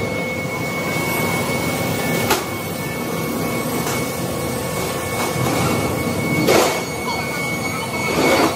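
Factory machinery running with a steady high whine, one sharp knock about two seconds in, and two short bursts of hissing near the end.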